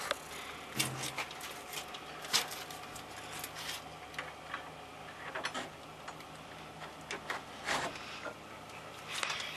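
Scattered light clicks and knocks at an irregular pace: hands working at a wooden board fence, with the camera being handled close to it. The strongest knock comes about a second in.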